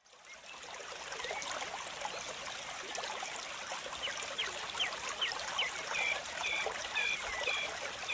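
River water rushing over rapids, a steady hiss that fades in over the first second. From about four seconds in, a bird chirps a quick series of short, sharp notes over it.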